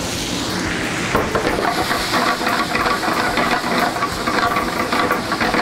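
Italian sausages sizzling loudly in a hot skillet over a gas burner, the fat hissing and crackling as they brown. The sizzle picks up about a second in.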